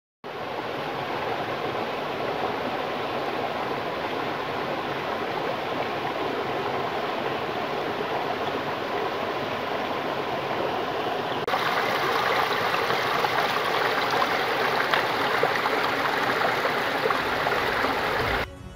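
Shallow rocky stream running over moss-covered boulders: a steady rush of flowing water. About eleven seconds in it switches to a louder, hissier rush of white water spilling between rocks.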